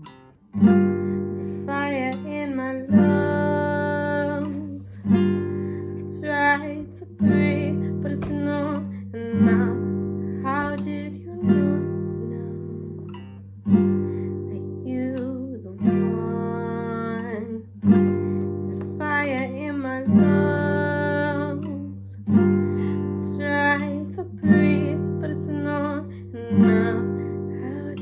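Classical guitar with a capo, strummed with a strong stroke about every two seconds, accompanying a woman singing.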